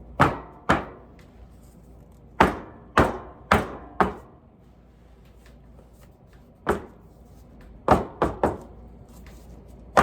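About ten sharp knocks of soap molds against a hard work surface, each with a short ring, coming in irregular groups with a pause of about two seconds in the middle.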